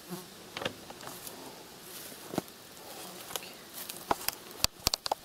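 Rustling and crackling of armfuls of cut green stalks being handled and carried, with scattered snaps and a quick run of sharp snaps near the end.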